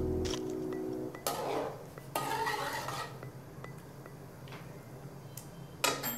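A slotted metal spatula scraping and clinking against an aluminium pot while stirring chicken pieces in a thick yogurt mixture, in irregular strokes, with a sharper clink near the end.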